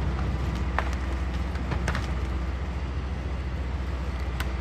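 Engines of heavy tree-service equipment running steadily with a low, even throb. A few sharp knocks and clacks sound over it.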